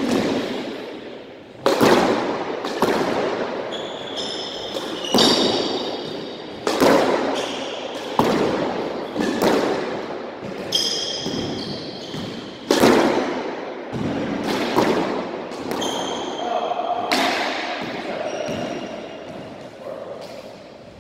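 Squash rally: the ball smacking off rackets and the court walls about every second and a half, each hit echoing around the court, with sneakers squeaking on the wooden floor between shots.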